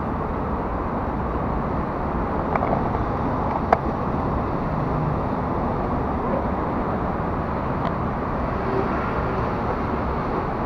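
Steady mechanical rumble of a moving escalator ridden upward, with a couple of light clicks, the sharpest about four seconds in.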